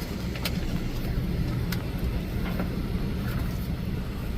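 A machine running with a steady low drone, with a couple of light clicks over it.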